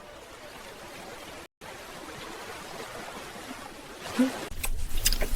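A steady hissing, rushing noise, broken by a brief dropout about a second and a half in, with a few sharp clicks near the end.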